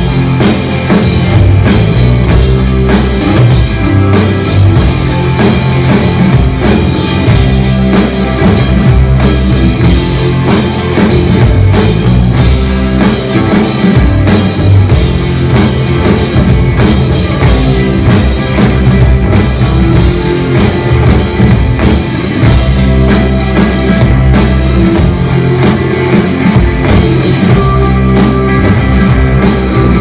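A live rock band playing loudly, with electric guitar and a drum kit keeping a steady beat; no singing is heard.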